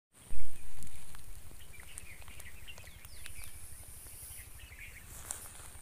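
Outdoor ambience: wind rumbling on the microphone, loudest in a gust about half a second in, with scattered small bird chirps and a steady high hiss.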